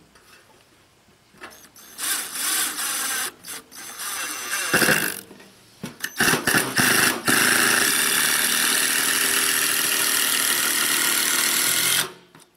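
Cordless drill driving screws into a 2x3 wooden strip set against a galvanized sheet-metal box: a few short runs, then one long steady run of about five seconds that stops abruptly near the end.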